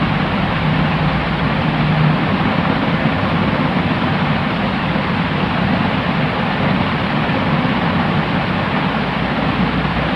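Steady white-noise sleep sound: an even, unbroken hiss with a low rumble underneath and little treble. It does not change.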